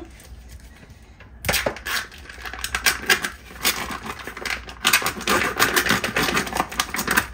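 Plastic wrapper on a spiral-sliced ham being cut open with a knife and crinkled by gloved hands: rapid, irregular clicks and crackles that start about a second and a half in.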